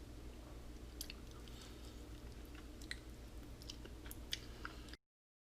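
A person chewing barbecued squirrel leg: faint, scattered mouth clicks and crunches over a steady low hum. The sound cuts off abruptly near the end.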